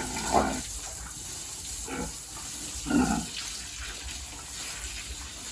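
Steady running water, with three short vocal sounds: one near the start, one at about two seconds and one at about three seconds.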